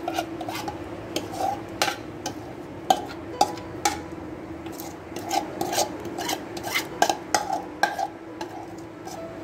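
Metal spoon scraping and clinking against a bowl as thick spice marinade is scooped out onto raw beef chunks, with many irregular sharp clinks over a steady low hum.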